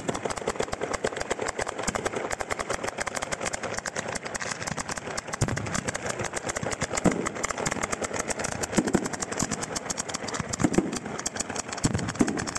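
Ground-level firework battery firing firecrackers in a dense, rapid crackle of many bangs a second, the rapid string typical of an Italian 'batteria alla bolognese'. Heavier deep bangs join in from about halfway through.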